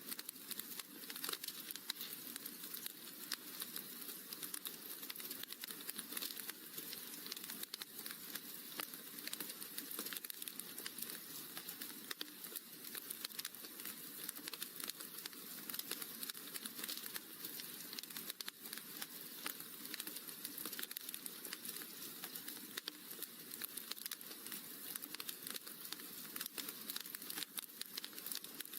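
Wood fire crackling in a fireplace: a steady stream of small pops and snaps over a soft hiss.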